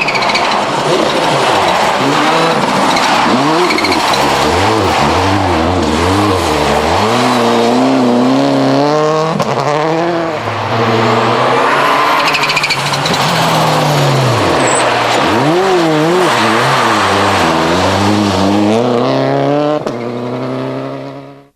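Subaru Impreza World Rally Car's turbocharged flat-four engine revving hard, its pitch rising and falling again and again through gear changes as it is driven flat out on a test stage. The sound fades out near the end.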